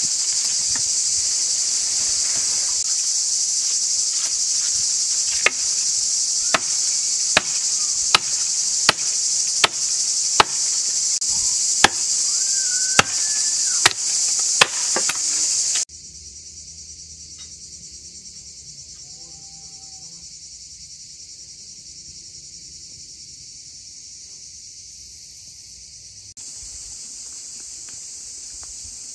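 An axe chopping into a small tree trunk, about a dozen sharp strokes a little under a second apart, over a steady high insect buzz. About halfway through the chopping stops and the sound drops suddenly, leaving the insect buzz quieter.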